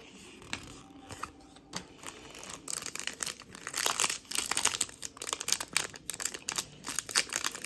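Crinkling and tearing of a plastic trading-card pack wrapper being opened and handled, a dense run of irregular crackles that starts about two and a half seconds in and keeps going.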